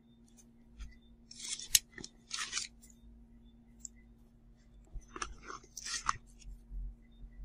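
Rustling and scraping of a leather bucket bag and its packing being handled, in two pairs of short bursts, about a second and a half in and again about five seconds in, with one sharp click between the first pair.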